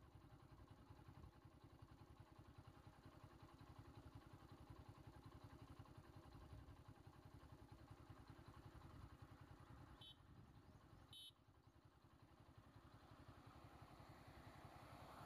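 Faint vehicle engine idling with a steady, rapid pulse. Two brief high chirps come about ten and eleven seconds in, and a rushing noise swells near the end.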